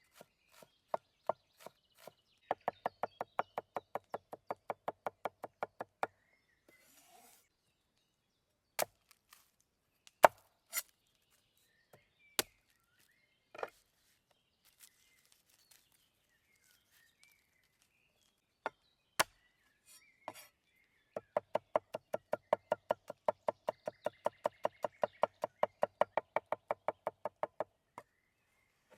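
Kitchen knife chopping food on a cutting board: two long runs of fast, even strokes, about six a second, with a few single knocks of the blade between them.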